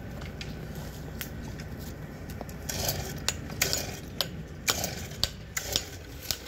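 Mason's hammer tapping a flagstone to trim it to shape: sharp metallic taps, a single one about a second in, then roughly two a second from about halfway through.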